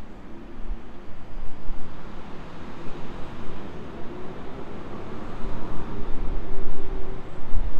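Diesel multiple unit approaching along the line, its engine drone with a faint steady tone growing louder as it nears.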